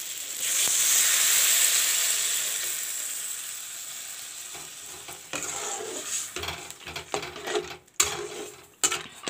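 Water poured into a hot metal kadai of frying macaroni, peas and spices: a loud sizzling hiss that swells about half a second in and dies away over a few seconds as the water takes the heat. A steel spatula then stirs and scrapes the pan, with a few sharp clinks near the end.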